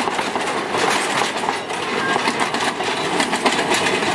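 Open passenger carriages of a narrow-gauge train rolling past at low speed, the wheels clicking rapidly over the rail joints.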